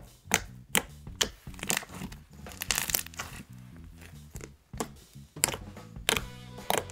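Slime crackling: a run of sharp, irregular pops and snaps, with a denser cluster about three seconds in. Soft background music plays underneath.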